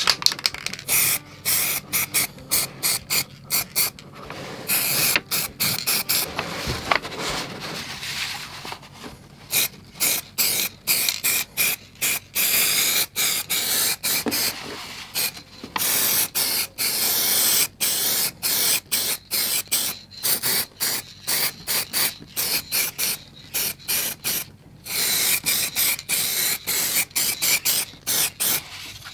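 Aerosol can of matte sealer (clear acrylic varnish) sprayed in many short hissing bursts, with a few held for a second or two.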